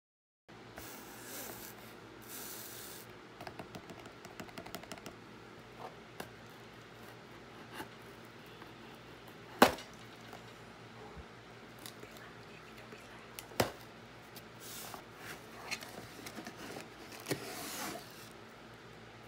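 Hands handling a cardboard shipping box and then peeling the plastic wrap off a phone's retail box: faint rustling, scraping and small clicks, with two sharper knocks about ten and fourteen seconds in, and plastic crinkling near the end.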